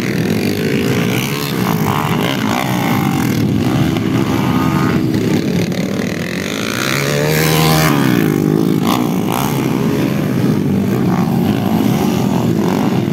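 Several underbone motorcycles racing on a dirt motocross track. Their engines rev hard together, with pitches rising and falling as they accelerate and back off. One engine grows louder about seven seconds in.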